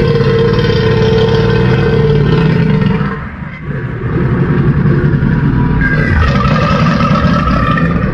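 Made-up Carnotaurus dinosaur roar, a creature sound effect built from a rooster call and a cartoon puppet creature's voice: two long, rough roars with a short break about three and a half seconds in.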